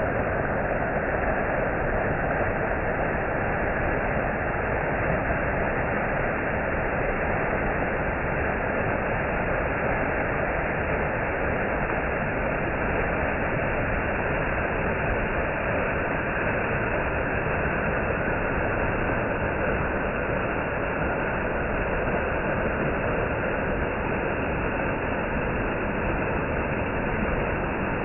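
Small waterfall pouring down a steep rock face: a steady, unbroken rush of falling and splashing water.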